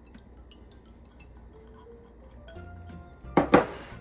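Two sharp clinks of a small glass bowl near the end, as it is set down on the counter, over soft background music with steady notes.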